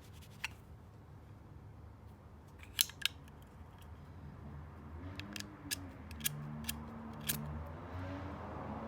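Sharp metallic clicks from a brass Zippo lighter being handled, its hinged lid clinking: one click, a close pair, then a run of about six clicks in the second half.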